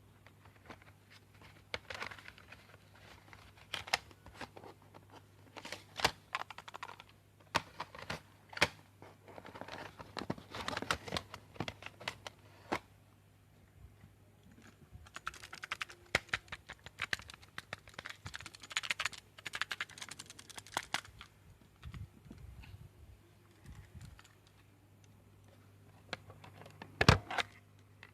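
Plastic audio cassette and its case being handled: many irregular sharp clicks and rattles, coming in dense clusters with a quieter stretch between, and one louder knock near the end.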